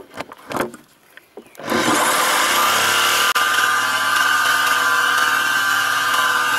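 Jigsaw with a narrow blade starting up about two seconds in, after a few brief knocks, and then running steadily as it cuts through a wooden panel.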